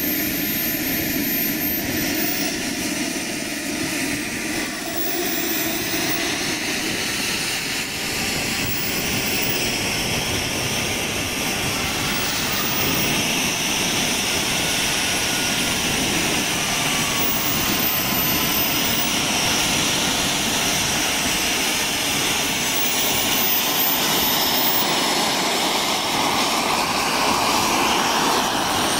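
Turbine engine of a Reaction 54 radio-controlled model jet running as the jet sits on the pavement and then taxis. It makes a steady rushing hiss with a faint wavering whine, a little louder near the end.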